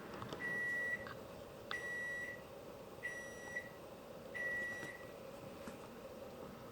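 Household appliance's electronic beeper sounding four steady, high beeps of about half a second each, evenly spaced about 1.3 seconds apart, with a few light clicks.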